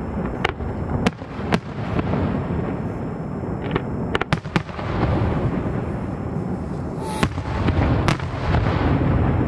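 Aerial fireworks shells bursting: sharp bangs every second or two, with a quick run of three about four seconds in, over a continuous low rumble from the display.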